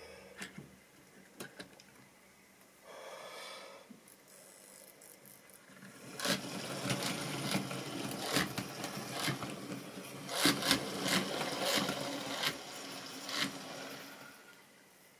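Tri-ang model railway rolling stock running on the track: a dense, rattling clatter of small wheels clicking over rail joints and points, louder from about six seconds in and dying away near the end. A few light clicks near the start as a wagon is handled.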